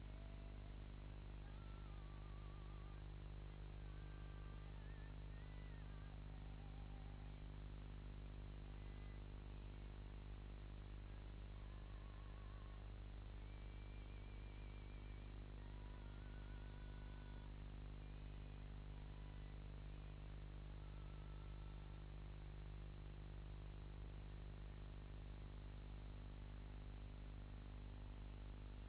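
Steady low hum and hiss from an old film soundtrack, with a few faint, short warbling tones here and there.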